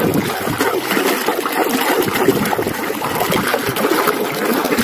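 Water running and splashing steadily over a muddy toy as it is rinsed clean.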